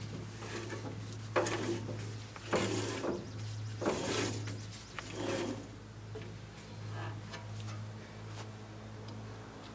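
Steel band blade of a portable sawmill being worked by hand onto its band wheel: several short scraping, rubbing noises in the first half, then quieter handling, over a steady low hum.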